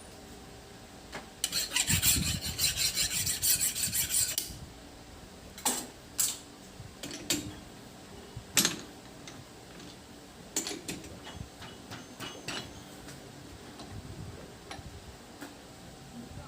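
Metal rasping quickly for about three seconds, then a run of separate sharp metallic clicks and knocks, as hand tools and metal parts are handled.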